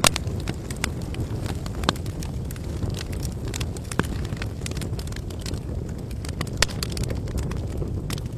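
Wood fire burning, with a steady low rush of flame and frequent sharp crackles and snaps from the burning wood. A few louder pops stand out, spaced about two seconds apart.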